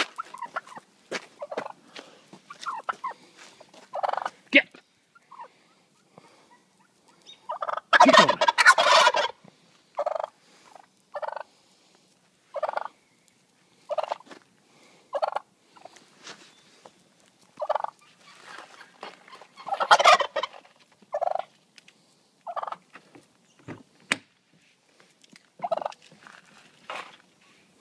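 Wild turkey toms gobbling: short calls every second or so, with two longer, louder gobbles about eight and twenty seconds in.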